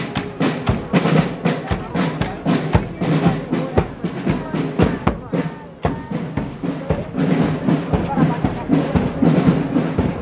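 Marching snare drums beating a rapid parade rhythm, played by a drum corps marching past, with music and voices mixed in.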